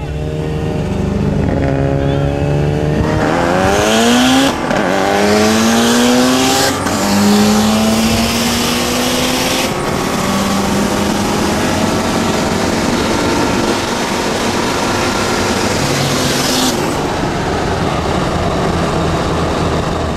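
A car engine at full throttle, heard from inside the car. Its pitch climbs in three runs, broken by quick gear changes about four and a half, seven and ten seconds in, under a rushing hiss. After the last change it holds a steadier high note.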